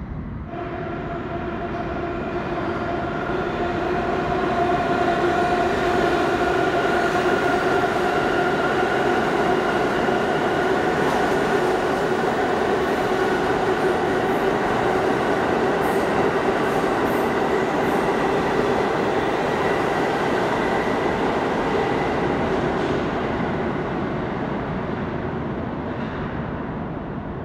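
New York City subway train passing through the station. A steady whine rides over the rumble of the wheels, building up as the train comes in and fading away as it leaves.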